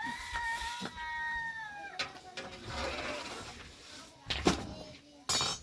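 A single long, high animal call, held steady for about two seconds and then dropping away at the end, like a cat's meow or a young kid's or lamb's bleat. Sharp knocks follow, the loudest about four and a half seconds in.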